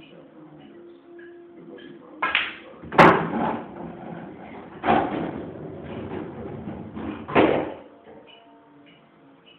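Pool shots on a coin-op pool table: four sharp knocks of cue and balls striking, about two, three, five and seven and a half seconds in, each trailing off in a short rolling rumble; the knock about three seconds in is the loudest and sharpest.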